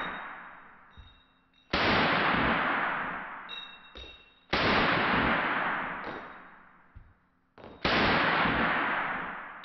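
Three single shots from a Kalashnikov SR-1 semi-automatic .223 rifle, fired about three seconds apart. Each shot rings out and dies away over about two seconds.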